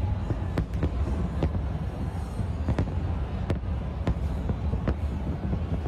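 Fireworks going off: a continuous low rumble with many sharp bangs and cracks at irregular intervals.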